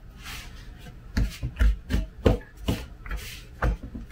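A utensil stirring and scraping through crumbly walnut crumb topping in a plastic bowl: about ten irregular scraping strokes with soft knocks against the bowl.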